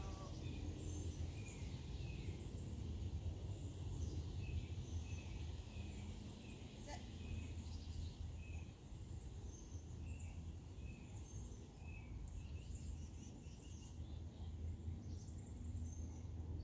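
Birds chirping in many short, repeated notes over a steady low rumble of outdoor background noise.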